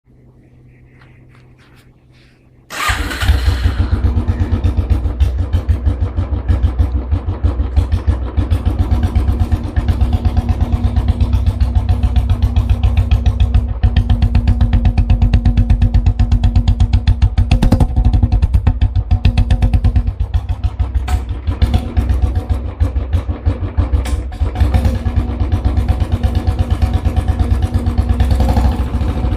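Royal Enfield Bullet single-cylinder engine starting up about three seconds in, then idling with a loud, fast, even exhaust beat through an aftermarket silencer.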